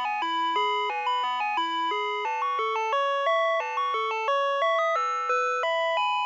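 Ice cream truck music-box chimes: an electronic melody of bell-like notes, one note at a time, stepping up and down every few tenths of a second without a pause.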